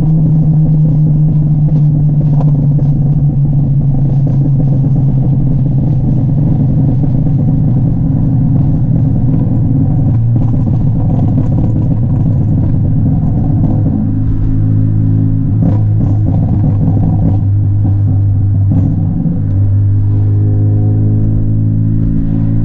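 Honda Civic Type R (EP3) 2.0-litre four-cylinder engine running steadily under way, its pitch slowly falling over the stretch, with a brief drop in level about nineteen seconds in. A few sharp cracks from the exhaust stand out above it.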